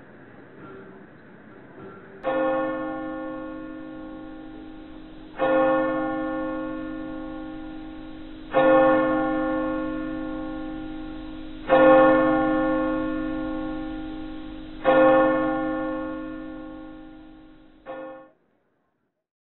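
A single church bell tolling slowly: five strokes about three seconds apart, each ringing out and fading, and a sixth stroke cut off as the sound ends abruptly.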